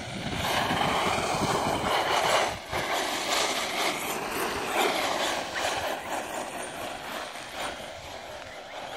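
HSP Brontosaurus Pro 3.0 1/10-scale RC monster truck driving on an icy, snow-covered track. Its 3300 KV brushless motor and drivetrain whine rises and falls with the throttle over the hiss of the tyres, with wind rumbling on the microphone.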